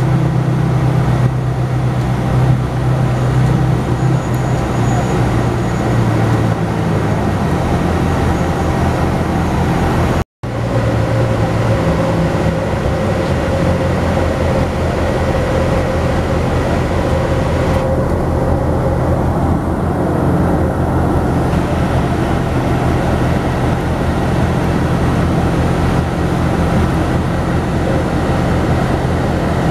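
Airport apron bus running, heard from inside the cabin: a steady low engine drone with road rumble. The sound cuts out for a moment about ten seconds in.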